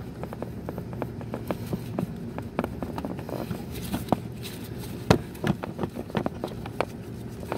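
Irregular clicks, taps and knocks of hands working at the rubber coolant hoses and their fittings on a 2005 VW Beetle's engine coolant flange, the sharpest knock about five seconds in, over a low steady hum.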